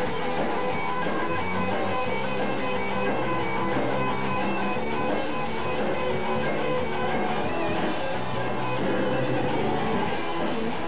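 A live band playing, with electric guitar out front in held, changing notes.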